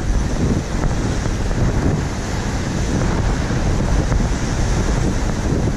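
Wind buffeting the microphone over surf breaking and washing on a gravel beach.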